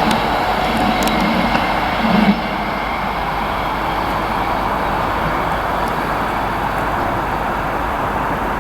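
Train moving along the track through a station: a steady rushing rail noise, with a faint hum that fades out about two seconds in as the level drops a little.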